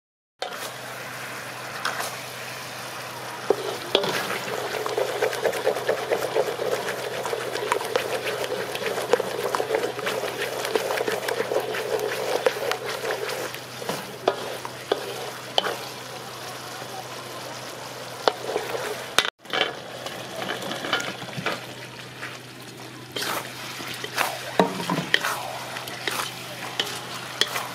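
A wooden spatula stirs and scrapes a thick, sizzling sauce in an aluminium wok, then tosses meatballs through it, with many light scrapes and knocks against the pan. The sound breaks off briefly about two-thirds of the way through.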